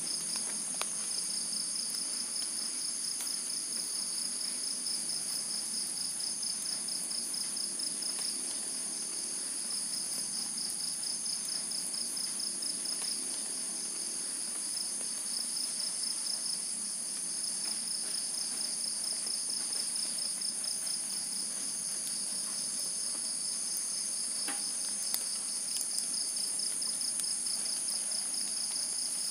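Night-time insect chorus of crickets: steady high trilling at several pitches at once, the lowest one pulsing very rapidly, with a few faint clicks.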